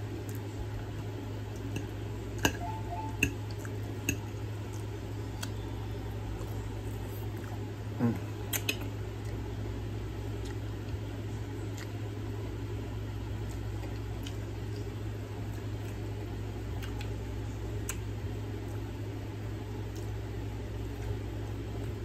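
Close-up eating sounds: wet chewing and mouth noises, with a few sharp clicks of a fork against a plate, over a steady low hum.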